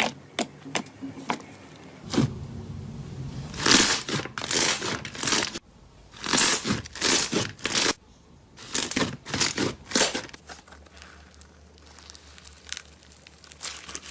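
Slime being squeezed and stretched by hand, giving irregular crackling, crinkling bursts with short pauses between handfuls.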